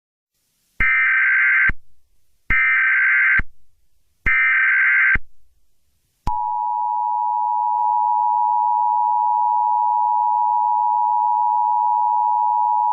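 Emergency Alert System header: three short bursts of screechy two-pitch digital data tones, each about a second long, marking the start of a new alert. About six seconds in, the steady two-tone EAS attention signal begins and holds.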